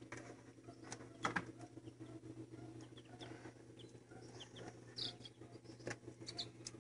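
Newly hatched chicks peeping faintly with short, scattered high chirps, over light rustling and a steady low hum.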